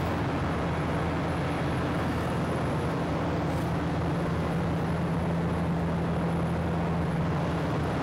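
Steady drone of running machinery, with a constant low hum under an even noise.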